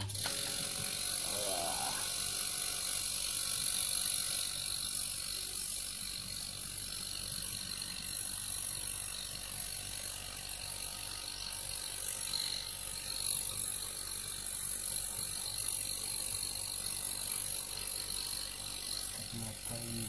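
Refrigerator compressor with its shell cut open, running steadily on mains power from the moment it is plugged in. It is being test-run after repair of a seized compressor, with its valve now refitted the right way round.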